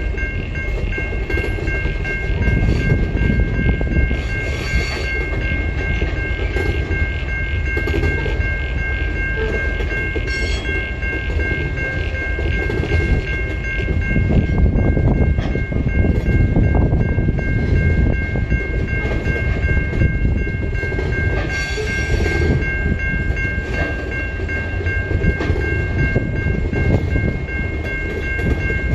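Coal hopper wagons of a freight train rolling past, a steady low rumble of wheels on rail with a steady high-pitched squeal over it and a few brief clatters.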